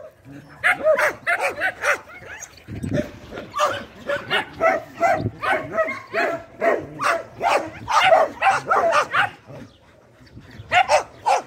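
Several dogs barking and yelping in quick succession, short high calls a few a second. There is a brief lull about two seconds in and a quieter stretch near the end.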